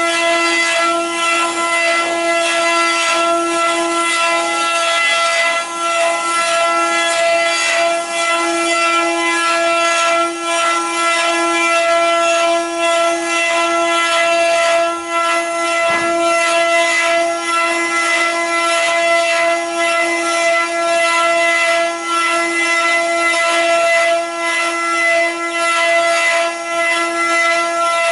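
Multi-spindle CNC wood carving machine running, its router spindles giving a steady high whine while the cutters carve the wooden blanks, with a rough hiss of cutting underneath.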